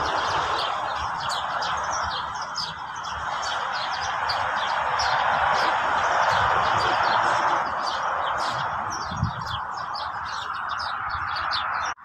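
Many small songbirds chirping and twittering in quick, overlapping calls over a steady rushing background noise.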